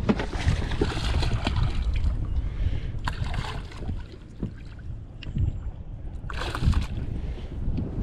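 Wind buffeting the microphone, a steady low rumble, with scattered small rustles and knocks and a short rushing noise about six and a half seconds in.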